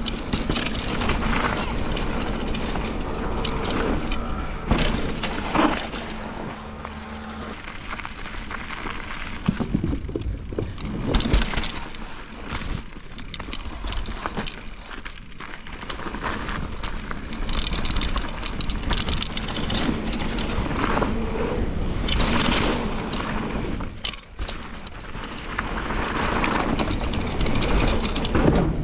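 Mountain bike descending a wet, rooty trail: tyres rolling over dirt and roots, the bike rattling and knocking over bumps in an uneven stream of knocks over steady noise that swells and eases.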